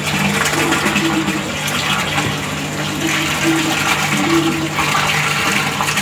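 Water splashing and bubbling in a fish tank with a steady rush, over a steady low hum.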